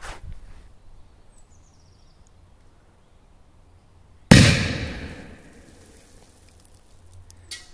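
A Korsar-8 firecracker exploding about four seconds in: one sharp bang whose echo dies away over about a second.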